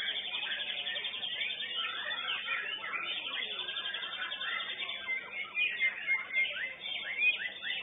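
White-rumped shama (murai batu) singing a fast, varied song of rapid trills, chatter and whistles, heard through a CCTV microphone that cuts off the high end.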